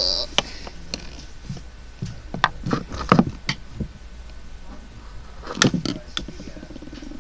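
Scattered clicks and knocks, bunched a few seconds in and again near the end, over a faint steady hum.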